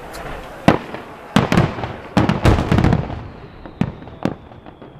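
Aerial firework shells bursting: a single bang under a second in, then a rapid cluster of loud bangs between about one and three seconds in, followed by two lighter bangs and scattered small pops.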